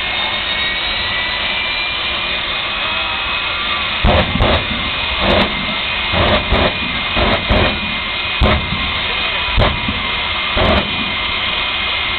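Jet engine mounted on a jet truck running at full blast with a steady roar and a high whine, its exhaust torching a car. From about four seconds in, a string of louder short bursts comes roughly once a second over the roar.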